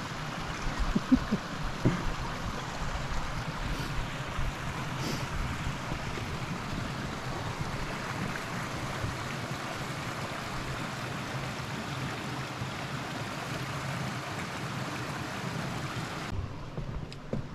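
Steady rush of a flowing stream, with an ATV's engine running at low speed underneath as it crosses the bridge, and a couple of knocks early on. The rush drops away abruptly near the end.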